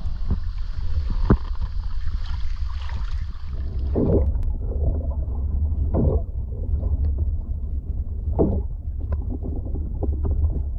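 Wind rushing on an action camera's microphone in open air, then, about four seconds in, the sound turns dull and muffled as the camera goes underwater: a steady low rumble of water against the waterproof housing, with a swelling whoosh of moving water about every two seconds.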